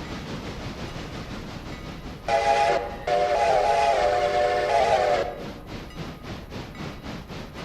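A locomotive sounds its multi-tone chime, one short blast and then a longer one lasting about two seconds, over the steady running noise of the train. After the blasts stop, a fast rhythmic clatter of the cars on the rails carries on.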